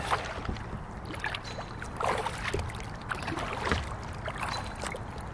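Kayak paddling on calm water: double-bladed paddles dipping in, with water splashing and dripping off the blades in many small, irregular drops.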